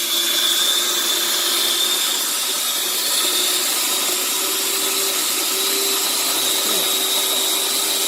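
Sboly electric conical burr coffee grinder running, its motor holding a steady pitch as the burrs grind a six-cup dose of coffee beans.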